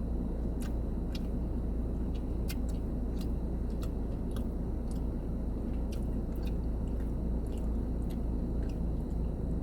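Close-up chewing of a breaded fried chicken strip dipped in ranch, with small wet mouth clicks scattered throughout, over a steady low hum.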